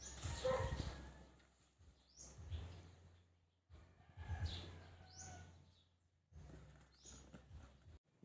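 Faint bird chirps: short rising calls, several times, over a low steady hum. They come in four snatches, each cut off suddenly into dead silence.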